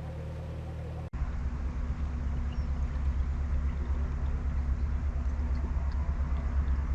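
Narrowboat's diesel engine running steadily, a low rumble. About a second in it cuts abruptly to a louder, deeper rumble.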